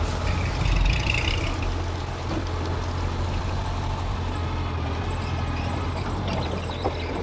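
Mitsubishi bulldozer's diesel engine running steadily, a little louder about a second in.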